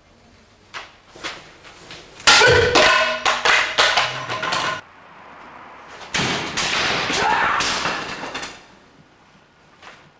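Japanese sword test cutting: a sharp cut about two seconds in, followed by cut target pieces clattering and knocking on a wooden floor for a couple of seconds. A second loud stretch of clatter comes about six seconds in.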